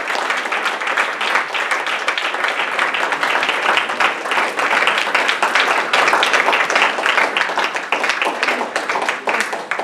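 Small audience applauding: many hands clapping steadily.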